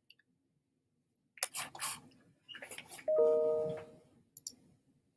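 Rustling and handling noise, then a two-tone chime that strikes suddenly about three seconds in and fades away over about a second.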